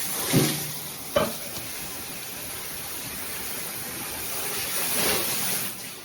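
Handheld shower head running on its strongest spray setting, the water making a steady hiss. There is a short thump and a sharp knock within the first second or so.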